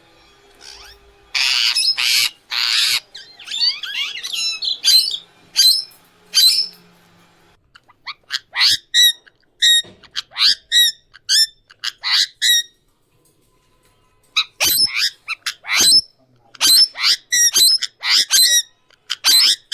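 Indian ringneck parakeet calling: three harsh screeches about a second in, a stretch of varied chattering calls, then two runs of short, sharp, high-pitched calls at about two a second.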